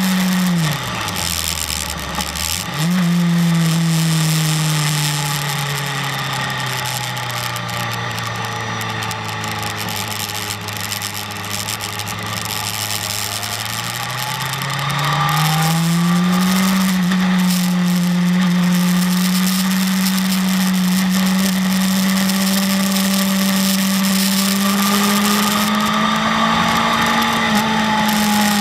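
BMW S1000RR inline-four engine heard from the bike under wind rush, its pitch dropping sharply about a second in as the throttle closes, picking back up near three seconds and sinking slowly through a long stretch. About halfway through it climbs again and then holds a steady higher pitch on the throttle.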